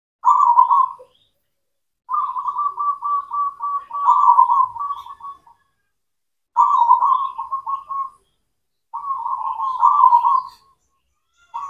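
Zebra dove (perkutut) singing: phrases of rapid, rolling coos, each lasting one to three seconds, repeated after short pauses, with a new phrase starting near the end.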